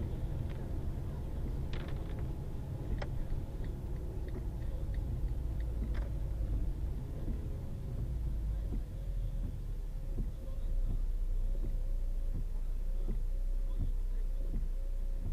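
Low, steady rumble of a car's engine and road noise inside the cabin, picked up by a dashcam's built-in microphone. Over it a faint sound repeats about one and a half to two times a second, with a few light clicks in the first several seconds.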